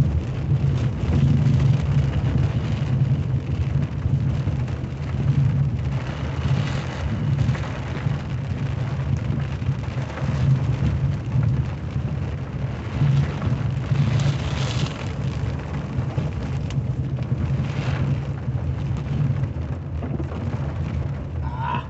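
Heavy rain beating on a moving car, heard from inside the closed cabin, over the steady low rumble of the car driving. The rain swells louder a few times.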